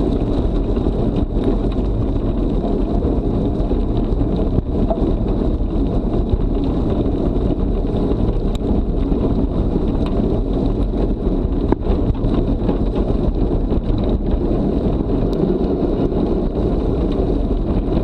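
Steady rumble of wind buffeting an action-camera microphone and a dog-drawn rig's wheels rolling over a dirt forest track at about 30 km/h, with scattered small rattles and ticks.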